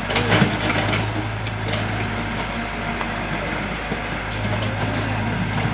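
Excavator's diesel engine running steadily, with a few sharp knocks, the loudest near the start.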